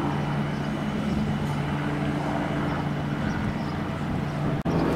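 CP series 3400 electric multiple unit pulling slowly out, its electric traction equipment giving a steady low hum with fainter higher tones.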